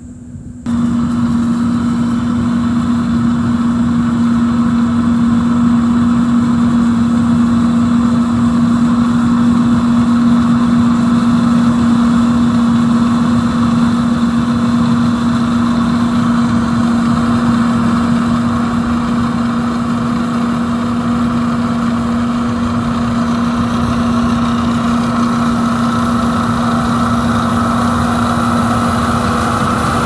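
Six-row rice combine harvester running as it cuts standing rice. The machine drones steadily with a strong low hum, starting abruptly less than a second in.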